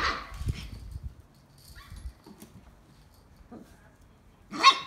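Young puppies yipping: a short yip right at the start, a faint one about two seconds in, and a louder one near the end, with quiet in between.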